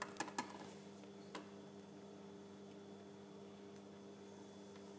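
A few light clicks of plastic toy figures being handled in the first half second, and one more about a second and a half in, over a faint steady hum.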